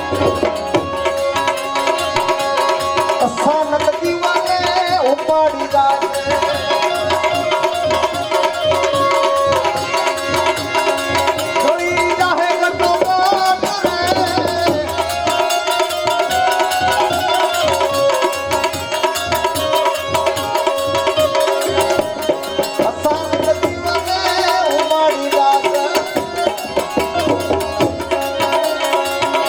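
Santvani devotional folk music: tabla drumming with a steady, sustained melodic accompaniment.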